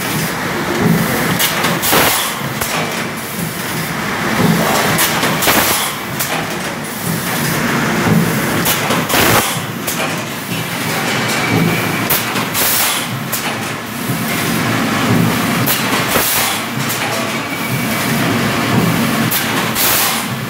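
Fully automatic four-cavity PET stretch blow moulding machine running in production. A constant mechanical din is broken by frequent sharp clicks, knocks and short hisses at irregular intervals.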